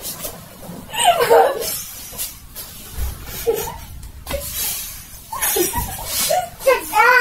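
People laughing in several short bursts.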